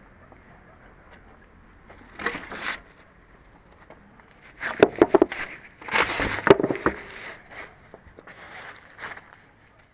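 Roadwork barrier poles and plastic warning tape being handled and set back up: several irregular bursts of knocking, rattling and crinkling, the loudest from about five to seven seconds in.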